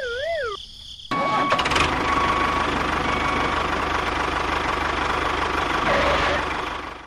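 A wobbling, falling cartoon whistle sound effect in the first half-second. Then, about a second in, a tractor engine starts abruptly and runs steadily with a low, even chugging.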